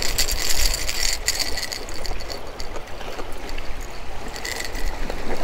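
Surf washing against jetty rocks with wind rumbling on the microphone. Bursts of quick clicking and rattling come in the first second and again near the end, as the hooked blue runner shakes on the topwater plug.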